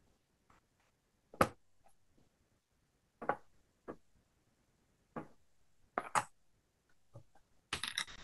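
Hands handling a stamp positioning platform and clear stamp: a series of light taps and knocks of plastic, about seven in all, the sharpest about a second and a half in and a quick cluster near the end.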